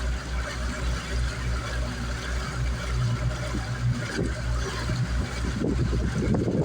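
Motorboat engine running steadily with a low, pulsing hum under a hiss of water and wind. An uneven rumbling joins about five seconds in.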